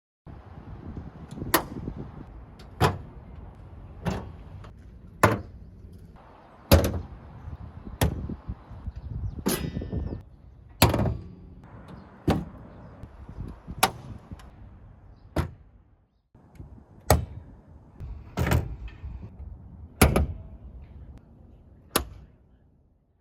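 Car bonnets being slammed shut one after another: about fifteen sharp slams, one every second or so, some with a short metallic ring.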